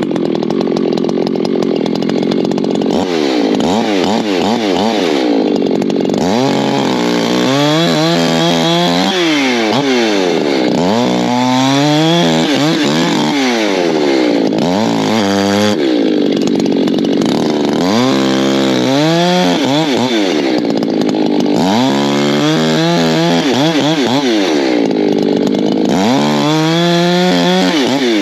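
Echo two-stroke chainsaw running at full throttle and cutting oak logs into firewood rounds. Its pitch is steady for the first few seconds, then sags and climbs back again and again, about six times, as the engine loads up in the cut and recovers.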